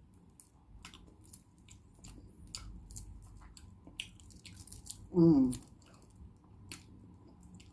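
Close-up wet chewing and small mouth clicks of someone eating balut (boiled fertilised duck egg). About five seconds in comes a brief voiced sound that falls in pitch, the loudest moment.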